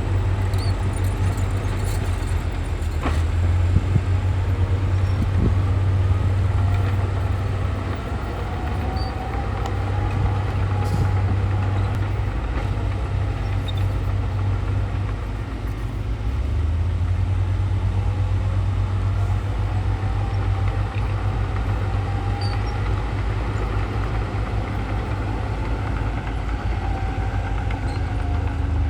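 Heavy earthmoving machine's diesel engine running steadily with a low drone, a faint whine drifting up and down in pitch, and a few scattered clanks.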